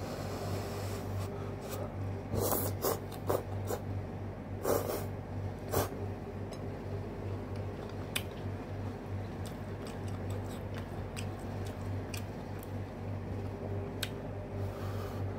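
A person eating noodles and dumplings with chopsticks: chewing and mouth smacks, with a cluster of sharp clicks about two to six seconds in and a few single ones later, over a steady low hum.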